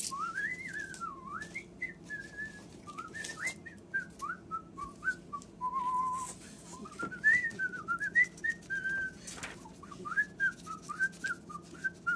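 Whistled birdsong imitation: a warbling run of short chirping notes that glide up and down, with a few sharp clicks among them.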